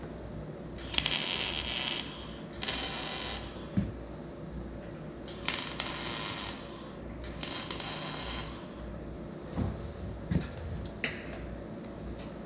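MIG welder's arc making four short welds on a steel frame, each a burst of crackling hiss about a second long, with a few light knocks in between and after.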